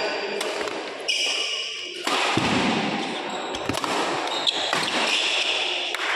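Badminton doubles rally: sharp racket strikes on the shuttlecock several times, with court shoes squeaking on the court surface between them.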